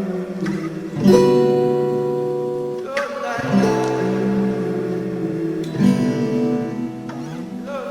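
Instrumental music: acoustic guitar chords strummed and left to ring, with a new chord struck every second or two.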